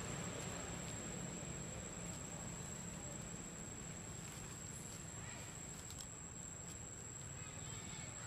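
Outdoor ambience: a steady high-pitched insect whine over a constant hiss, with a few faint clicks in the second half.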